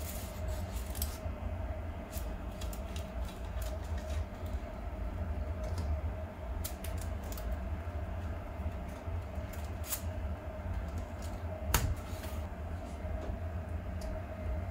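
Light scattered clicks and rustles of plastic 3D-printer filament and a filament spool being handled, with one sharper click near the end, over a steady hum.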